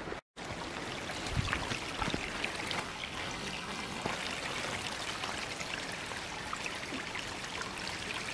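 Small, shallow creek running steadily over stones.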